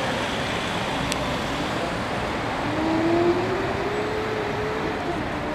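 Steady vehicle or traffic noise, with a tone that slowly rises in pitch starting about three seconds in and a single sharp click about a second in.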